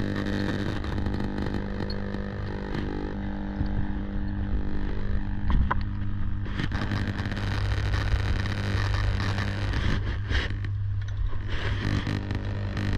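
Steady low hum of energised high-voltage substation equipment, with scattered small clicks and knocks from the work.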